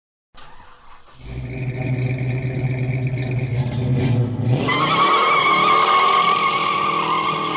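Car engine running with a steady low rumble, then revving up about four and a half seconds in while tyres squeal loudly over it. The sound starts abruptly.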